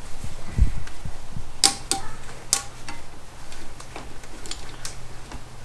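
Metal clinks and knocks from tools and parts being handled, with a dull thump about half a second in and a few sharp ringing clanks.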